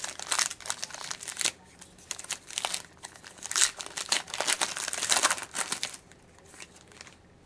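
Shiny foil trading-card pack wrapper being torn open and crinkled by hand, a dense crackling that thins out about six seconds in.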